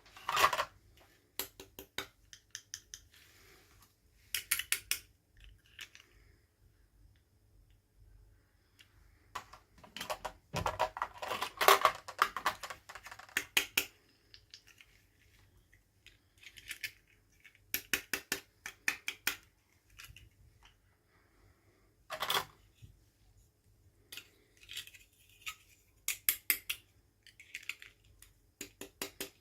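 Toy packaging being opened and handled: irregular bursts of rapid clicking and crinkling, the loudest about eleven to thirteen seconds in.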